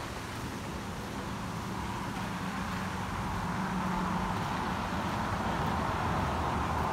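Steady outdoor background rushing with a low hum under it, swelling over the last few seconds.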